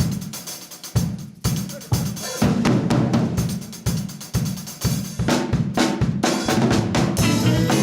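Drum kit playing in a Latin fusion band: bass drum and snare hits with rimshots in a steady groove. From about five seconds in, the rest of the band fills in under it.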